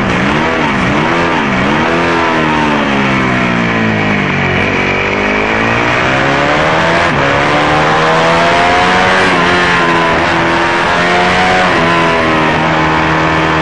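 Motorcycle engine heard close to its exhaust, revs falling and rising through the bends. Two quick dips and recoveries come at the start, then the revs fall for about four seconds and climb again under acceleration, with a few stepped changes near ten seconds in.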